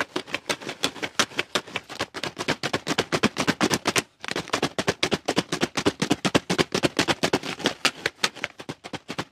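A motorcycle roller chain rattling inside a plastic bottle of petrol as the bottle is shaken hard to wash it, with several clattering knocks a second and a short break about four seconds in.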